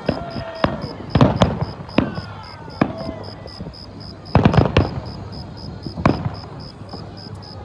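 Aerial fireworks shells bursting overhead in a series of sharp bangs, with a quick cluster of several bangs about four and a half seconds in.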